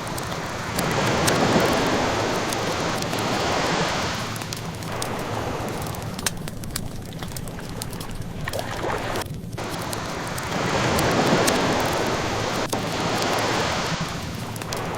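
Ocean waves washing in twice, each surge rising and falling away over a few seconds, over a wood fire crackling with small scattered pops.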